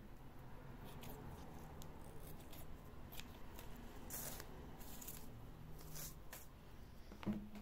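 Scissors snipping through gathered tulle to trim a pompom: a scatter of faint, short cuts, with a single louder knock near the end.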